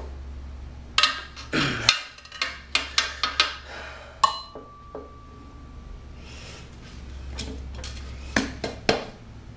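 Metal tire levers clinking and knocking against each other and the wheel rim as they are handled and set in place for mounting a motorcycle tire; a quick run of clinks in the first few seconds, one leaving a short metallic ring, then two more knocks near the end.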